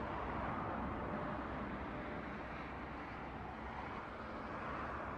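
Steady outdoor background rumble and hiss, with no distinct event standing out.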